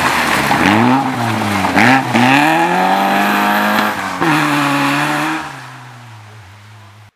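Peugeot 205 rally car engine revving hard through a gravel corner, with tyres scrabbling on loose gravel. The revs dip and climb a few times, drop sharply at a gear change about four seconds in, then the engine fades away as the car drives off.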